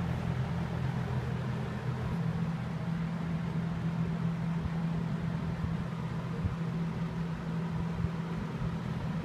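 1972 Lakewood S-23 20-inch box fan with a McMillan motor running steadily on its medium setting: a constant low motor hum under an even rush of moving air.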